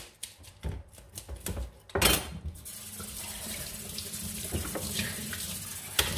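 A few light clicks and knocks, then a kitchen tap is turned on about two seconds in and water runs steadily into the sink.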